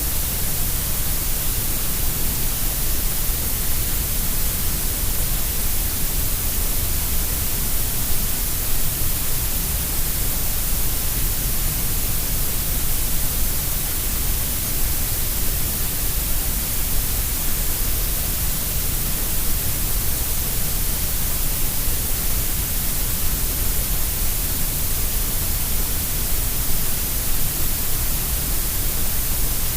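Steady synthetic grey noise: an even, unchanging hiss, fuller in the deep lows and the highs and thinner through the middle.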